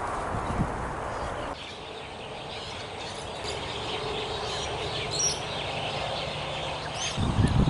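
Outdoor ambience with small birds chirping and calling against a steady background hiss. A low rumble under it cuts off abruptly about a second and a half in.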